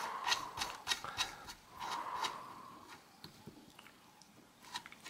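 Light metallic clicks from a Sturmey-Archer AW three-speed hub's internals as the cone is turned by hand on the axle against the driver. There is a run of quick clicks in the first couple of seconds, then a few sparse ticks.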